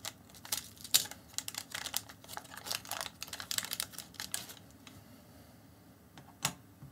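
Foil pouch of a Covid-19 rapid antigen test being torn open and unwrapped by hand: a run of crinkling and clicking for about four and a half seconds, then quieter, with one sharp click near the end.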